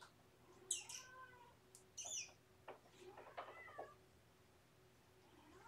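Domestic cats meowing faintly: a few short meows or chirps, about a second in and again around three seconds in.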